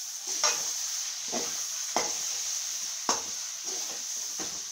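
A slotted metal spatula scraping and knocking against a metal kadai as cabbage and chana dal are stirred, about once a second, over a steady sizzle of the frying vegetables.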